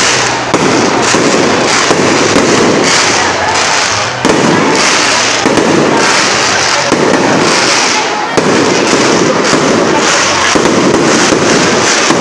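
Aerial fireworks display: shells bursting one after another in a loud, continuous barrage of bangs and crackles with no pause.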